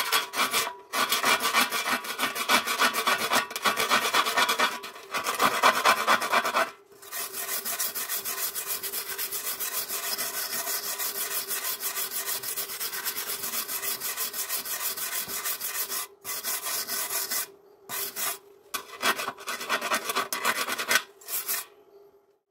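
Brass-bristled hand wire brush scrubbing back and forth over a fresh MIG weld on galvanized steel tube, cleaning the weld. Quick scratchy strokes, louder for the first seven seconds, then steadier and quieter, with a few short pauses in the last few seconds before the brushing stops.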